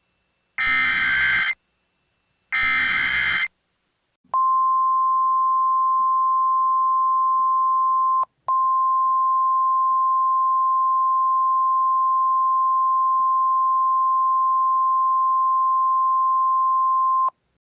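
Two short bursts of screeching EAS SAME digital header data, then the NOAA Weather Radio warning alarm: a single steady tone of about 1050 Hz held for about 13 seconds, with a brief break a few seconds into it.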